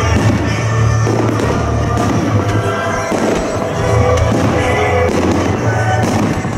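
Fireworks salute going off in repeated, irregular bangs and crackles, over loud festive music with a steady low bass.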